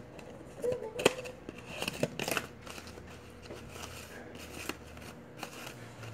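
Scattered light clicks and small plastic rattles from handling a light-up fidget spinner.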